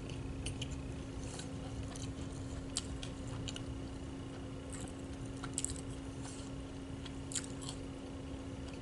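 Someone eating: chewing food with scattered small clicks and ticks, over a steady low hum.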